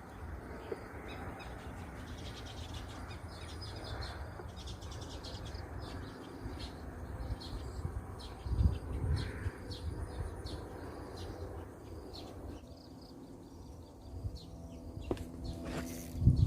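Small birds chirping repeatedly over a low outdoor rumble, with a steady hum coming in late and a loud knock near the end.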